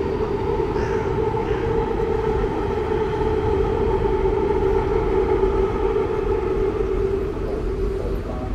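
Sightseeing boat's engine running with a steady hum over a low rumble; the hum fades near the end.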